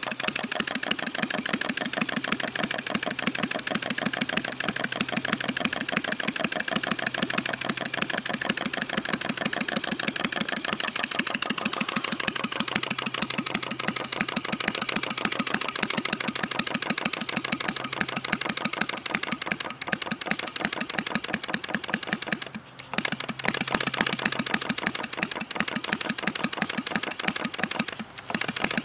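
Rudy Kouhoupt-design non-compression model engine, spark-ignited and running on Coleman fuel, running steadily with a rapid, even clicking beat. It falters briefly twice near the end, then picks up again.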